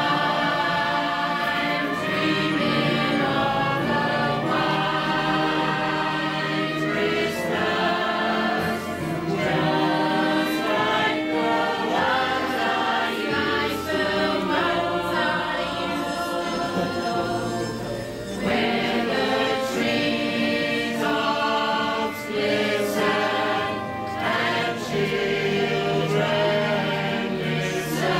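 Mixed choir of men's and women's voices singing together, with a short break between phrases about two-thirds of the way through.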